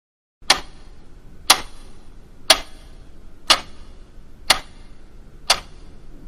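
Clock ticking, one sharp tick each second, starting about half a second in: six ticks in all.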